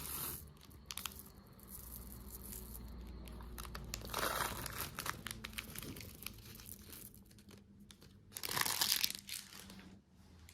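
Plastic candy wrappers crinkling and tearing open by hand, with scattered small clicks. There are two louder rustling bursts, about four seconds in and again near the end.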